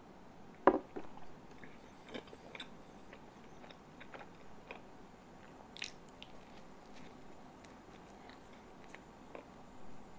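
Close-up sounds of a person eating a soft cream-filled iced bread bun: quiet biting and wet chewing with small mouth clicks and smacks. A single sharp knock about a second in is the loudest sound.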